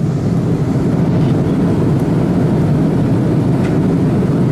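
Steady cabin noise of an Airbus A330 airliner in flight: an even rush of engine and airflow noise, heaviest in the low range.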